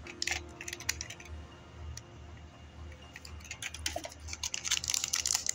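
Crinkling and clicking of handled plastic packaging: a clear plastic blister pack and a plastic bag of dice being handled. The clicks come in a short cluster at the start and grow dense and loudest for the last couple of seconds.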